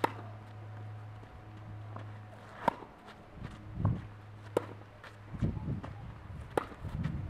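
Tennis ball struck by rackets in a rally on a clay court, a sharp hit about every two seconds, four in all. Between the hits, footsteps scuff and slide on the clay.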